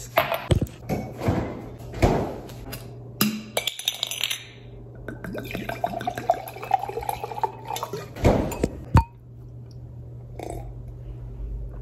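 White wine poured from a bottle into a stemless glass, the pouring sound rising in pitch as the glass fills. Glass clinks and knocks come before and after the pour.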